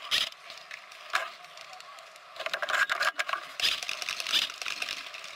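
A man whispering close to the microphone in short phrases, with pauses between them.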